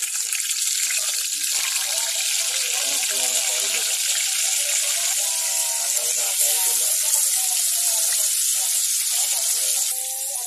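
Water running steadily from a tap, a loud even hiss, with fish being washed and cleaned under it; the flow drops back about ten seconds in.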